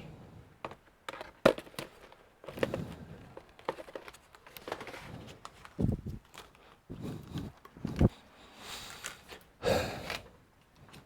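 Laptop parts being handled during disassembly: irregular plastic and metal clicks, knocks and rustling, with one sharp click about one and a half seconds in.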